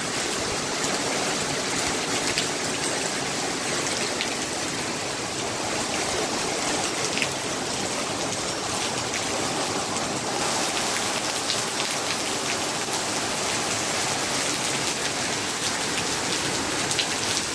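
Heavy rain pouring down steadily, with scattered sharp ticks of drops striking a surface.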